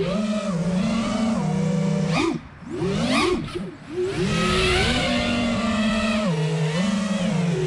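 An FPV quadcopter's iFlight Xing 2306 2450kv brushless motors and propellers running on 4S in flight, a buzzing whine whose pitch shifts up and down with throttle. Between about two and a half and four seconds in, the sound twice drops away and swoops in pitch.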